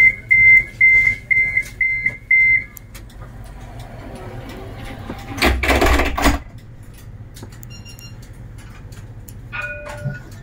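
CAF Urbos 3 tram's door-closing warning: six short high beeps over about two and a half seconds. About five and a half seconds in comes a brief loud burst of noise, and near the end a short chime-like tone.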